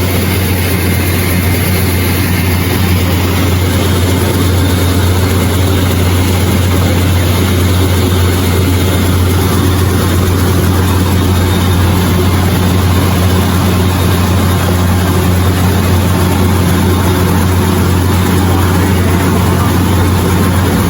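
Shin Nong rice mill machine running steadily while milling red rice: a loud, constant low hum from its electric drive under a steady rushing hiss of grain passing through the husker and whitener.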